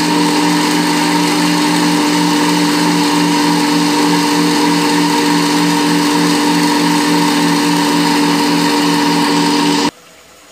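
Electric countertop blender running steadily, puréeing boiled spinach; the motor sound cuts off abruptly near the end.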